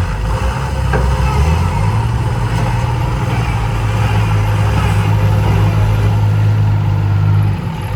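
Heavy diesel engine running loudly. Its note strengthens about two seconds in, holds steady, and drops back shortly before the end.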